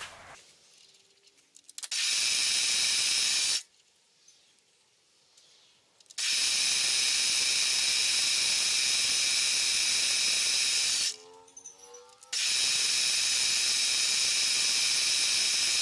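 A steady hiss, switched on and off abruptly three times, while holes are drilled into an aluminium disc on a mill: about a second and a half, then about five seconds, then about three and a half seconds.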